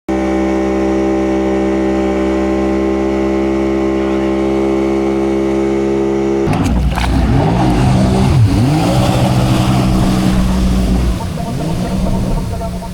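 A steady droning tone with many even overtones, giving way about halfway through to an engine revving up and down over and over, with a rushing hiss on top.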